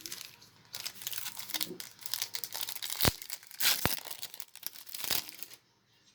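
Foil Yu-Gi-Oh booster pack wrapper crinkling and being torn open, with a couple of sharp clicks midway; it stops shortly before the end.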